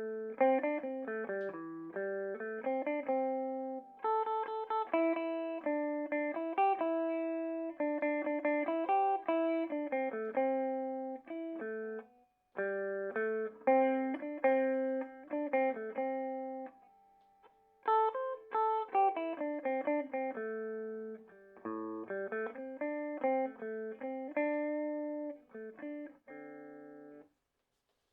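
Electric guitar through a Peavey Bandit 112 combo amp on its clean channel in modern mode, using the high-gain input: clean, undistorted picked notes and chords, phrase after phrase with two short pauses, and the playing stops shortly before the end.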